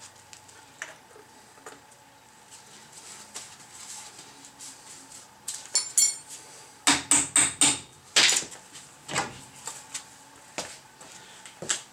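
Metal clinking and knocking as the front brake drum and hub are worked off the spindle of a Datsun truck's drum brake: faint clicks, two sharp ringing clinks about halfway through, then a quick run of loud knocks and a few softer ones.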